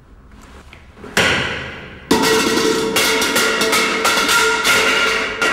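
A bundle of things tumbling down a flight of stairs: a loud thud about a second in, then a second, bigger crash and a long clattering run of knocks and rattles with a ringing tone under it.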